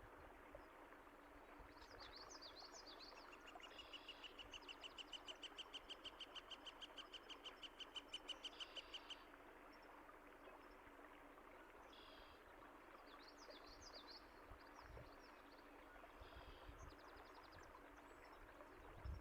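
Songbirds singing faintly over a steady murmur of running water: twittering phrases about two seconds in and again around thirteen seconds, and a long, fast trill of repeated notes from about four to nine seconds.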